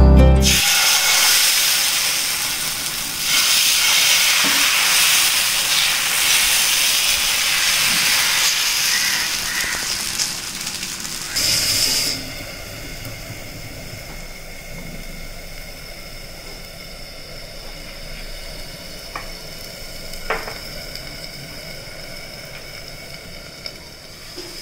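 Oil and dosa batter sizzling on a hot cast-iron dosa pan. The sizzle is loud for about the first twelve seconds, then drops to a quieter steady hiss.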